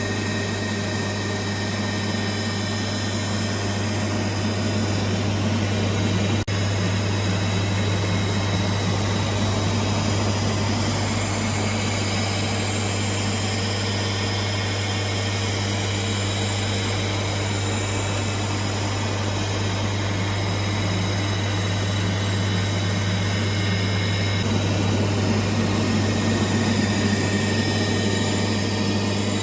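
Three-phase electric water pump running steadily under power: a strong, even motor hum with a dense rushing noise over it.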